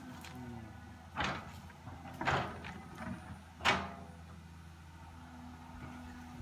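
Caterpillar 315C hydraulic excavator running steadily, with three sharp knocks about one, two and three and a half seconds in as it works through the brush.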